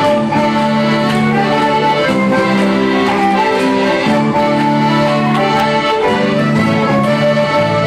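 Live bush band playing a folk dance tune for the dancers, with held melody notes over a steady accompaniment.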